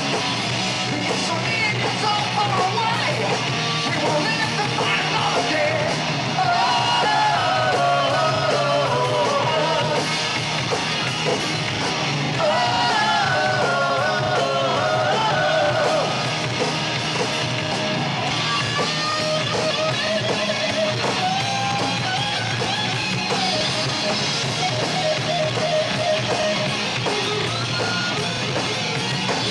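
Live heavy metal band playing loudly: distorted electric guitar, bass and drum kit, with a sung lead vocal line over them.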